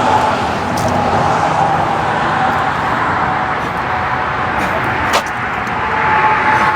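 Steady road traffic noise, with one sharp click about five seconds in.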